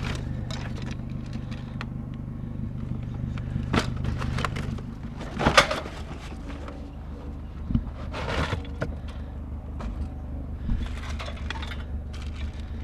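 Objects in a curbside trash pile being handled: scattered knocks and short clattering, rustling bursts, the loudest about halfway through. A vehicle engine hums steadily under the first half, then fades.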